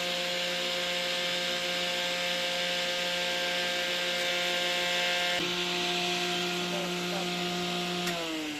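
Chopper/shredder machine running, a steady motor hum under a hiss of chopping, as it shreds Madre de Agua leaves for chicken feed. Its pitch shifts about five seconds in, and near the end the pitch starts falling as the machine slows down.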